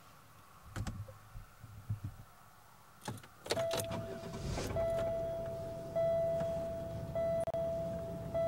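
A car's warning chime dinging over and over, one steady note that restarts about every second and a bit, after a few clicks and knocks of handling in the vehicle.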